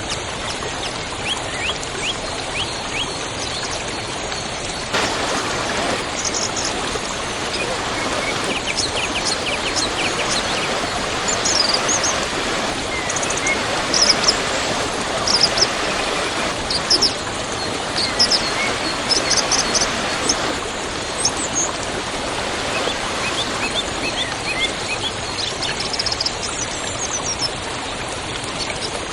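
Waterfall rushing steadily, growing fuller about five seconds in, with small birds chirping in short bursts over the water.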